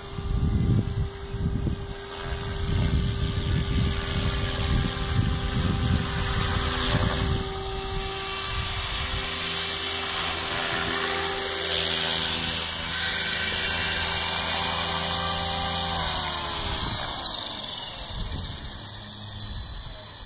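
500-size RC helicopter in flight, its rotor and motor giving a steady pitched drone with a high whine that grows louder about halfway through. Near the end the pitch falls steadily as the helicopter, now landed, spools down.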